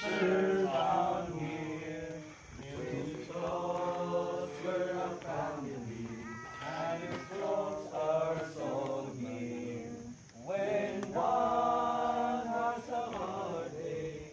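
Voices chanting in slow phrases of long held notes, with short breaks between the phrases.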